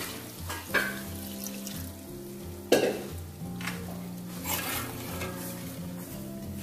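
Hot water poured into simmering chicken korma in a metal handi, the gravy sizzling, then a metal spoon stirring and clinking against the pot, with a sharp clink about three seconds in. Soft background music plays underneath.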